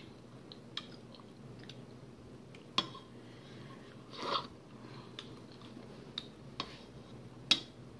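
Person eating soup with a metal spoon: mouth sounds of chewing and smacking, a slurp from the spoon a little after four seconds in, and a few sharp clicks, the loudest near the end.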